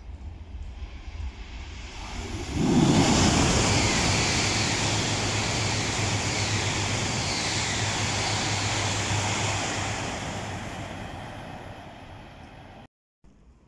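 H5 series Shinkansen coupled with an E6 series passing through the station at speed without stopping: a rush of air and rail noise that jumps up sharply about two and a half seconds in as the train arrives, holds loud for several seconds, then fades as it recedes. The sound cuts off suddenly near the end.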